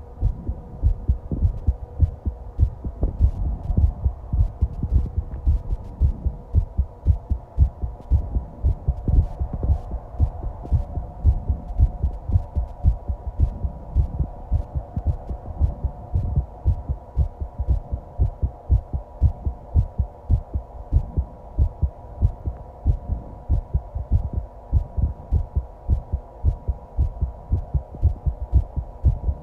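A human heartbeat recorded close up, a steady run of regular low thumps, with a faint steady hum underneath.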